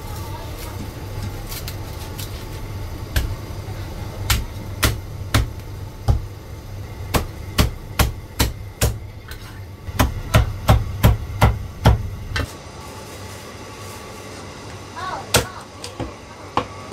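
Heavy Chinese cleaver chopping crispy roast pork belly on a round wooden chopping block: a run of sharp chops starting about three seconds in, coming quickly around ten to twelve seconds in, over a steady low hum that stops soon after. A few more chops follow near the end.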